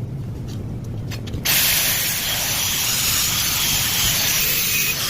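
Air-conditioner vacuum pump switched on about a second and a half in, its motor running with a loud, steady hiss over a low hum.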